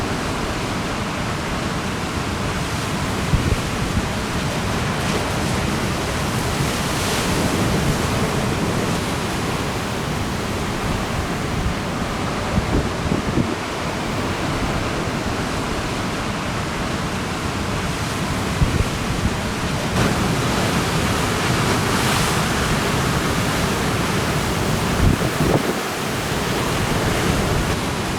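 Steady rush of ocean surf mixed with strong wind buffeting the microphone, with a few brief gusty thumps.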